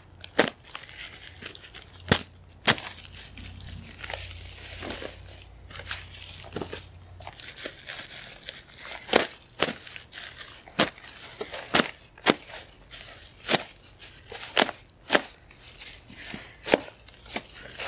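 Thick plastic bag being untied and pulled open by gloved hands: crinkling and rustling with many sharp crackles and snaps of the plastic.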